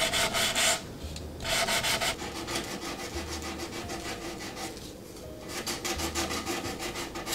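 Hand sanding the painted edge of a wooden cabinet with a red sanding pad: quick back-and-forth rubbing strokes in runs, pausing briefly about a second in and again about five seconds in. The corners of the fresh chalk-style paint are being lightly sanded down.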